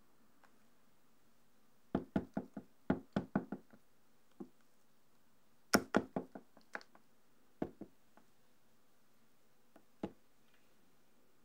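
A spatula knocking and tapping against the rim of a glass bowl and a stainless steel cake ring while mousse is scooped in: two quick runs of taps, several a second, then a few single knocks.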